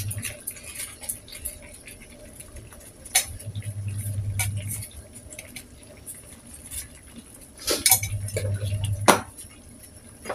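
Kitchen utensils clinking and tapping against dishes: a handful of sharp clinks with softer handling knocks between, the two loudest clinks near the end.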